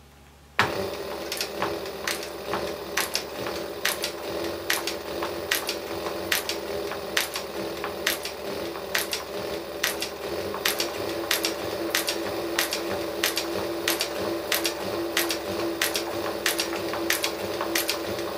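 Tysew TY-3600C cylinder-arm walking-foot industrial sewing machine stitching slowly through leather, starting about half a second in: a steady motor hum with a sharp click at each stitch, about two to three a second, as a test seam is sewn.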